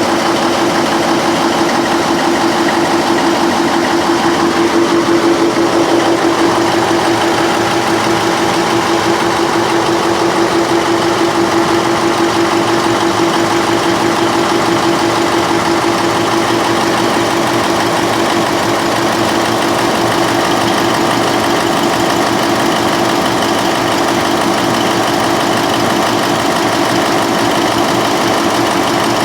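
Generator set's Mitsubishi Fuso 8DC9 V8 diesel engine running steadily at a constant speed, with a strong steady hum and diesel clatter.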